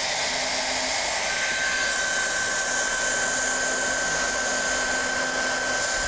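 Hot-air plastic welding torch blowing steadily while a plastic filler rod is melted into a crack in a motorbike fairing panel. A thin steady whine joins the rush of air about a second in.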